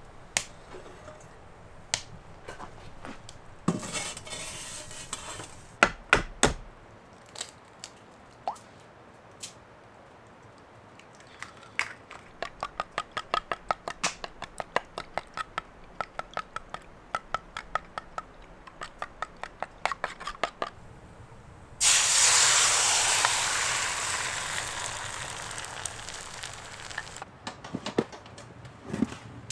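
A few knocks and clatters of a pan and bowl, then eggs beaten with a knife in a wooden bowl, about three quick clicks a second. Near the end the eggs hit a hot frying pan on the wood stove with a sudden loud sizzle that slowly fades.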